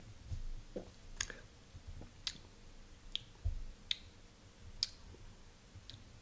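Mouth and tongue clicks and lip smacks as a sip of beer is tasted: about six short, sharp clicks roughly a second apart, unevenly spaced, with a few faint low thuds.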